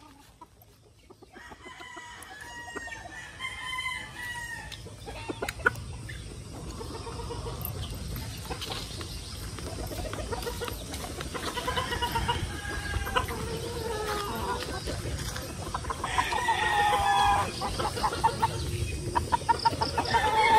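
Roosters crowing several times, one long call after another, growing louder toward the end.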